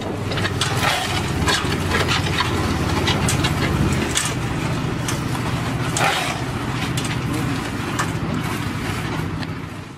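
A heavy diesel engine running steadily, overlaid by repeated scrapes and crunches of shovels spreading asphalt mix around a manhole frame.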